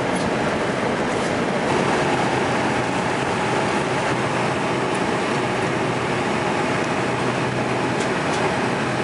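Steady airliner cabin noise in cruise flight: an even rush of engines and airflow with a faint low hum underneath, broken only by a few faint light clicks.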